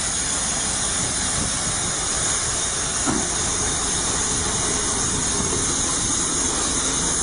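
Steady hissing rush from a damaged Renault truck tractor with its front end torn apart and its engine still running.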